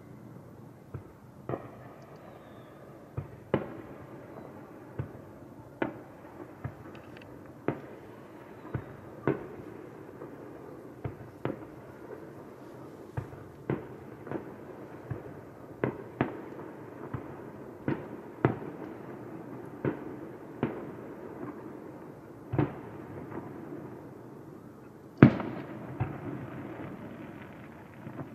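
Aerial firework shells bursting one after another: a sharp bang every second or so, each trailing off in an echo. The loudest bang comes near the end.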